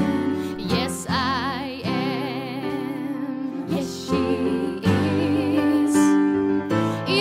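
A slow, gentle song with instrumental backing. A singer holds long notes with vibrato, and the voice pauses and re-enters several times.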